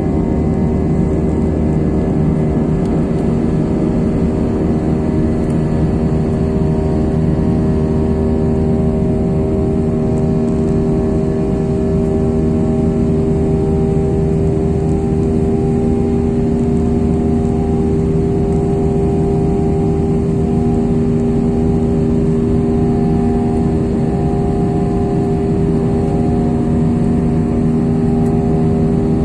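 Jet airliner cabin noise heard beside the wing: the turbofan engine's steady drone, with several steady hums under a constant roar of noise.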